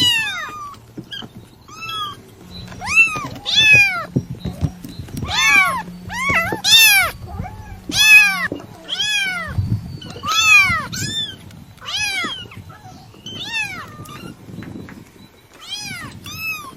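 Kitten meowing over and over in short, high-pitched calls that rise and fall, about one to two a second.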